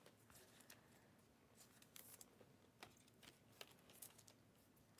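Near silence: room tone with a few faint, light clicks scattered through it.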